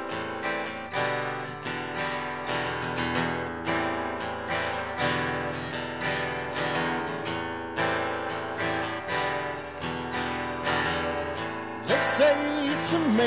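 Acoustic guitar strummed in a steady rhythm, about two strums a second. A man's singing voice comes in near the end.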